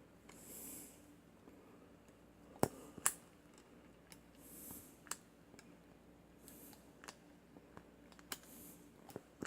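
Self-adjusting wire stripper working on a length of wire: a handful of short, sharp clicks from the pliers' jaws and handles, about five spread across the stretch, with faint soft hisses in between.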